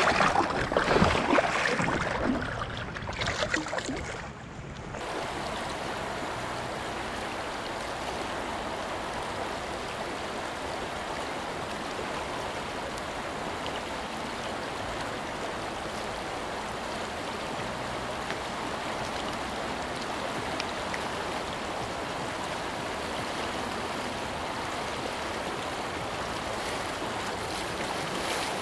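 A released steelhead splashing and thrashing in shallow river water for the first four seconds or so, then the steady rush of a flowing river.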